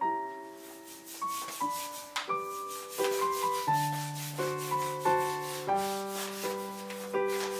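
A blade scraping old grease off the cast-iron foot treadle of a Chandler & Price platen press, then a rag rubbing over it, in repeated short strokes. Background music of sustained melodic notes plays throughout.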